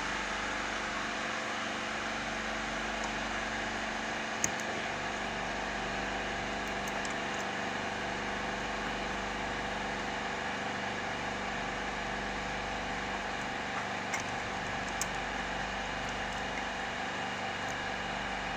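A steady machine hum with several even tones, and a few faint light clicks about four seconds in and again past the middle.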